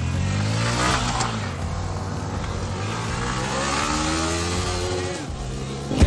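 A motor vehicle's engine revving and accelerating, its pitch rising and falling as the revs change.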